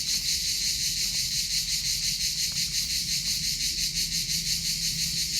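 Insects chirping in a steady, high, fast-pulsing chorus, with a couple of faint knocks.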